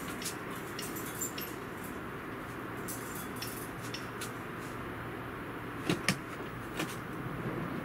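Minivan sliding-door handle and latch being worked to open the door: two sharp clicks close together about six seconds in and another shortly after, over a steady outdoor hiss.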